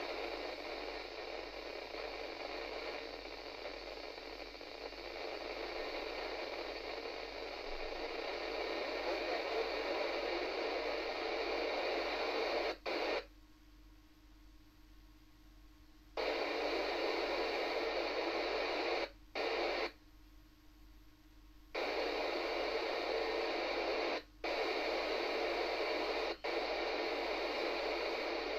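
FM radio static from a Yaesu transceiver tuned to the ISS Russian voice downlink, an even hiss with no voice on it. It cuts out twice for about three seconds, plus a few brief dropouts.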